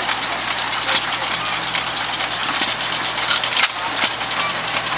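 Sandwich single-cylinder hit-and-miss engine running, with a sharp firing stroke every second or so at uneven spacing between coasting strokes.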